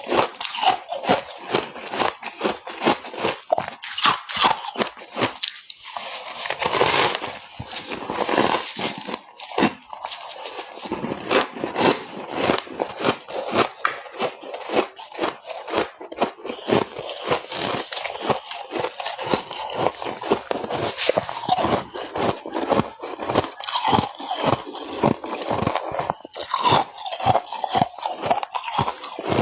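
Close, crisp crunching of frost, made up of many quick crackles in rapid succession.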